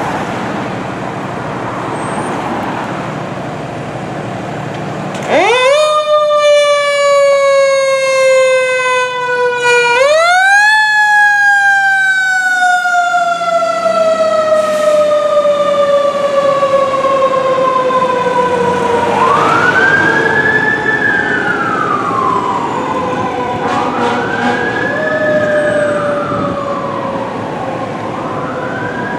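Fire engine siren. About five seconds in it jumps sharply up in pitch, then slowly winds down. It does this again about five seconds later, with a long slide down, and then changes to a repeated wail, rising and falling every few seconds. Before the siren starts there is a steady rumble.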